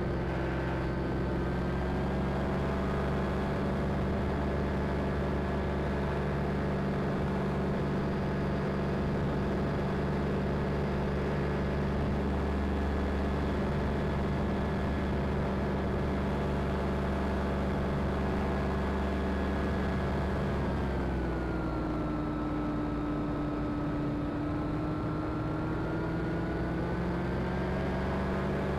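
Ultralight aircraft's engine and propeller running steadily in flight, recorded on board. About two-thirds of the way through the engine note drops as the throttle is eased back, holds lower, then rises back to cruise near the end.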